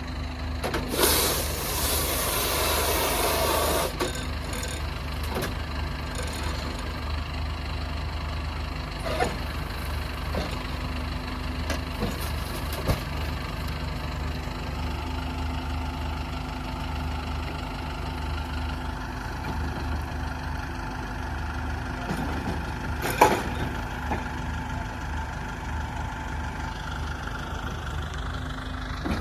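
Tractor and KUHN i-BIO+ round baler-wrapper running steadily, an engine drone throughout. A loud hissing rush lasts about three seconds near the start, and a few sharp knocks come later, the loudest about two-thirds of the way through.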